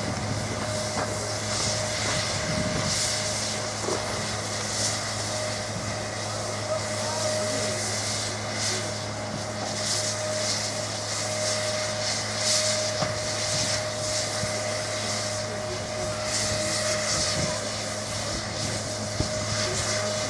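Steady mechanical hum with a constant whine and a hiss that swells and fades, from a steam-hauled train standing at rest.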